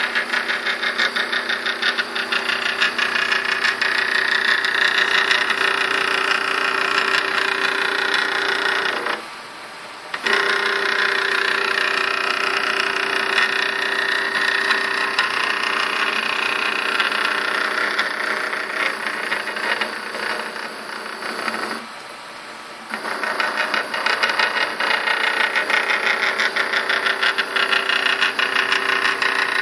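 Stepper motors of a homemade CNC machine driving its carriage along the axis, a steady buzzing whine with several fixed pitches. The motors stop for about a second twice, about nine seconds in and again about twenty-two seconds in, then start again.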